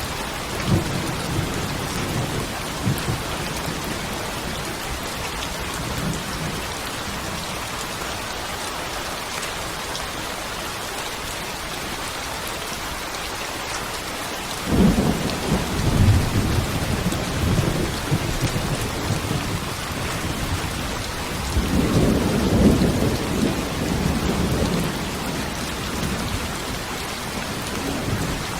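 Steady heavy rain with rumbles of thunder, one starting about halfway through and another a few seconds later.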